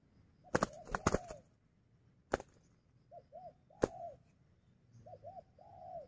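Spotted doves cooing in short, soft notes that rise and fall, several in pairs. Sharp clicks come between them and are the loudest sounds.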